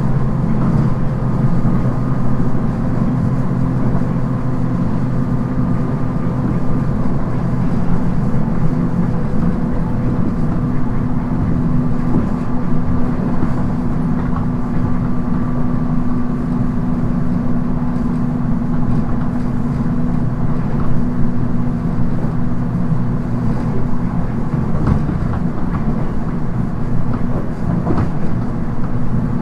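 JR East 719 series electric train heard from inside the car, running at a steady speed: a constant hum with several steady tones over an even rolling rumble. The unit is one labelled an abnormal-noise car (異音車).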